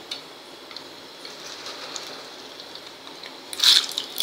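Hot oil crackling lightly in a steel kadhai, then a loud burst of sizzling near the end as sago pearls (sabudana) are poured into it for frying.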